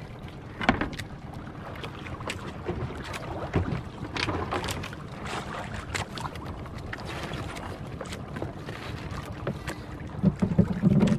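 Water and wind noise aboard a small boat at sea, with irregular knocks and splashes against the hull and wind buffeting the microphone. There is a louder cluster of knocks near the end.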